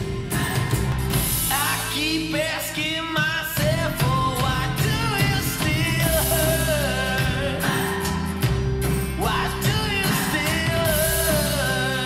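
A pop-rock song with a singing voice over a steady beat and bass, played back through compact hi-fi monitor speakers: first the JBL Control 1G, then the Canton Plus XL.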